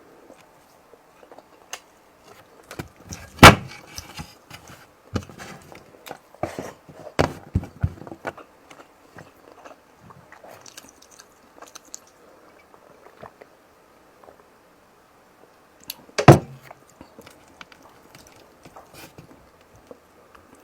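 A person eating close to the microphone: scattered chewing, wet mouth sounds and small clicks, with two loud sharp knocks, about three seconds in and about sixteen seconds in.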